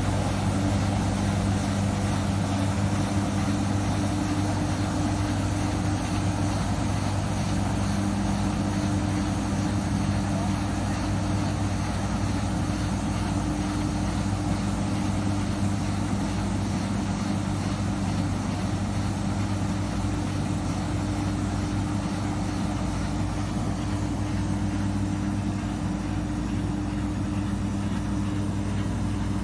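A machine's motor running with a steady, even hum and a low drone that does not change.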